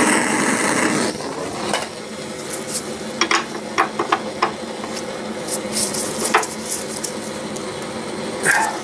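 Gas torch hissing loudly for about the first second while it heats a seized, rusted nut, then hissing on more quietly. Over it come about ten sharp metallic clinks of a spanner against the nut.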